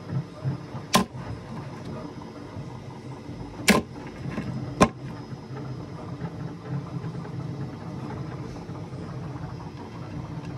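Sharp clacks of the magnetic float knocking against the levitation base as it is positioned by hand: three times, the loudest about four seconds in. A steady low hum runs underneath.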